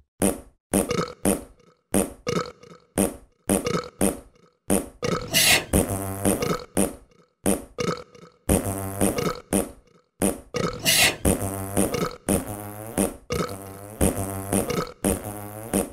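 A rapid run of fart sound effects strung together like a tune. Brief pops come first, then from about five seconds in longer, buzzing farts whose pitch wavers.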